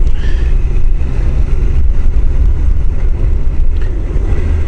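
Honda CBR1000F inline-four engine running steadily under way, heard through a helmet microphone with heavy wind rush and low rumble from the air flow.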